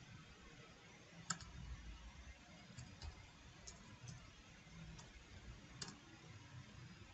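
Faint computer keyboard keystrokes: about seven scattered key clicks, the sharpest about a second in, over near silence.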